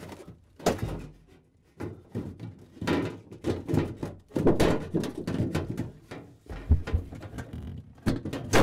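Knocks, thunks and scraping from a refrigerator freezer's back panel, the evaporator cover, being worked off its tabs and handled, with a sharp knock near the end.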